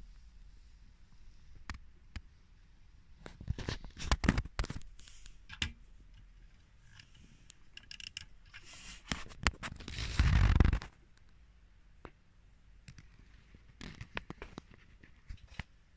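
Scattered sharp plastic clicks and taps as a hand handles a LEGO truck model and works its hinged cab door. About ten seconds in comes a louder rubbing scrape lasting under a second.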